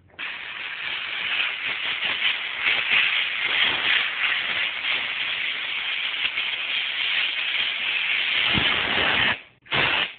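Power router running steadily as it cuts a groove into a foam surfboard blank for an inlaid stringer, then cutting off abruptly about nine seconds in, followed by a short burst near the end.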